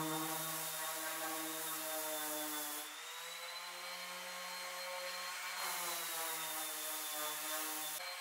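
Steady hum of a running workshop machine motor with a faint high whine. Its tone shifts abruptly about three seconds in, again near six seconds, and near the end.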